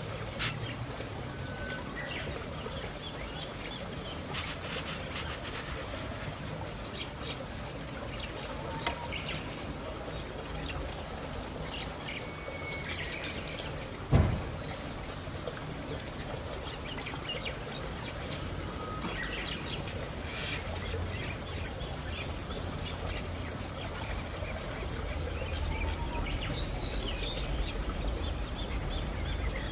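Small birds chirping on and off over a low, steady background rumble, with one sharp thump about halfway through.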